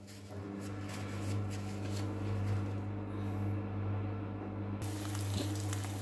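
Eggs and sliced mushrooms frying in a non-stick pan: a soft, steady sizzle over a steady low hum. The sizzle turns suddenly brighter near the end.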